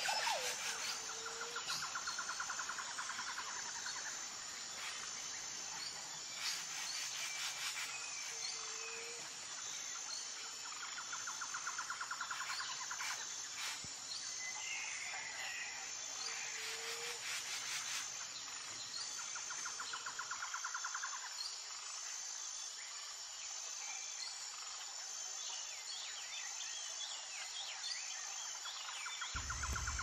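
Faint outdoor nature ambience: insects trilling in pulsed bursts of about two seconds every few seconds over a steady high insect whine, with a few short bird chirps.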